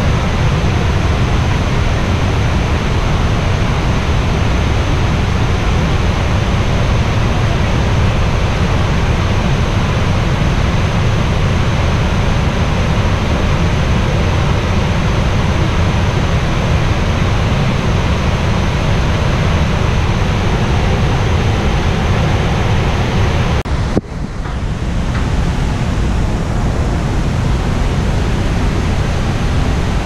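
Iguazu Falls waterfall: a loud, steady roar of falling water, heaviest in the low rumble. Near the end it briefly drops out and then comes back.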